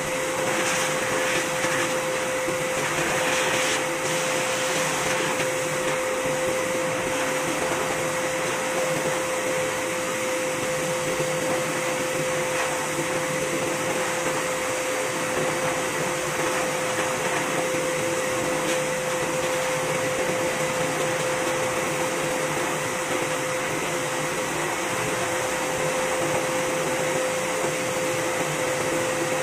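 Pet grooming blower running continuously through its corrugated hose: a steady rush of air with a constant pitched whine, used to blow loose undercoat out of a cat's fur.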